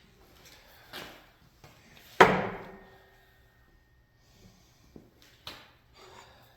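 Steel on steel at a fly press: a few light knocks, then one sharp metal clank about two seconds in that rings on briefly, and a few more light knocks near the end.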